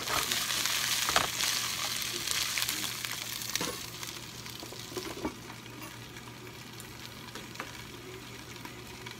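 Green beans sizzling in hot oil in a frying pan as they are tossed, with a few light knocks. A glass lid goes on about three or four seconds in, and the sizzle turns quieter and duller.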